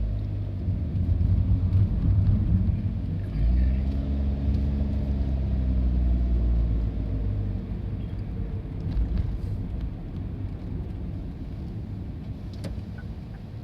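Diesel railcar passing over a level crossing: a low engine rumble with its pitch sliding up and down, loudest in the first half, then dying away as the train moves off.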